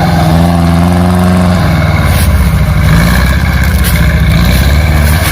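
Off-road vehicle engine running and revving, its pitch rising and falling.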